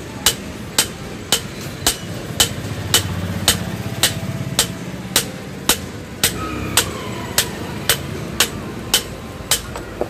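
A hammer striking metal in a steady rhythm, about two sharp, ringing blows a second. A low rumble swells under it a few seconds in.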